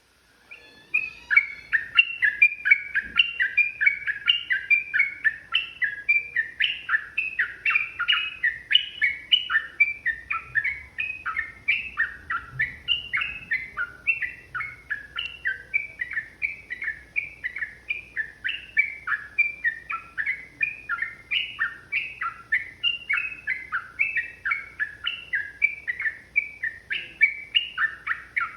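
Yellow-vented bulbul (trucukan) singing a long unbroken run of short, quick notes, about three a second, starting about a second in.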